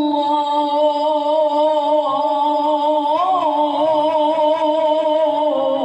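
Male reciter's voice holding one long, wavering note in melodic Quran recitation (tilawah), the drawn-out melisma at a verse ending, amplified through a microphone. A brief upward turn comes about three seconds in, and the note starts to taper near the end.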